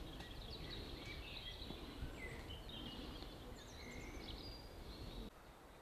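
Small birds singing faintly in short, high chirps and warbled phrases over a low steady rumble. The background cuts out abruptly near the end.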